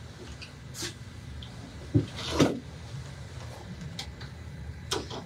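Room tone of a meeting room: a steady low hum with a few scattered knocks and rustles. The two loudest knocks come about two seconds in, close together.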